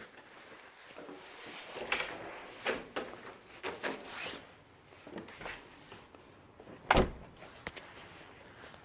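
Irregular knocks, thuds and scuffs, with one sharp knock, the loudest, about seven seconds in.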